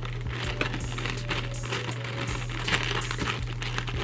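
Thin plastic air-cushion film crinkling and crackling irregularly as fingers feed it into the feed slot of an air cushion machine, over a steady low hum.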